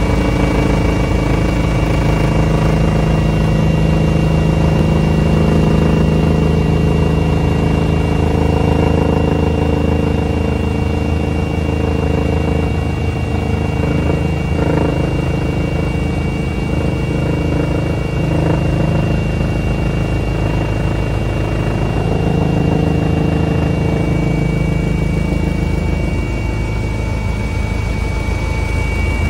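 Eurocopter EC135 twin-turbine helicopter in cruise, heard from inside the cabin: a loud, steady drone of rotor and engines with a high, even whine over it.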